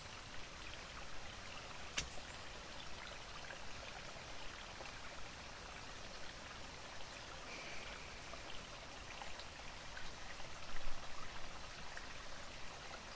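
Steady soft hiss of a small forest stream, with scattered faint ticks and a sharp click about two seconds in. A short cluster of louder bumps comes near the end.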